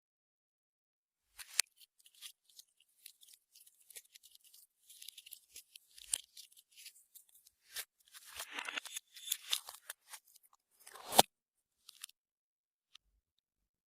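Clear slime being worked by hand, making small sticky clicks and pops that start about a second and a half in, grow into dense crackling around eight to ten seconds in, and end with a louder pop about eleven seconds in.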